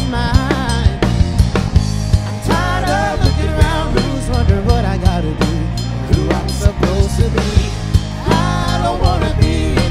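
Live rock band playing an instrumental passage: drum kit, bass and a melodic line that bends in pitch in short phrases.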